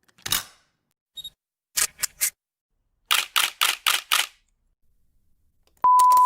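Camera shutter clicks: one, then a quick group of three, then a run of five. Near the end a loud, steady electronic beep tone starts.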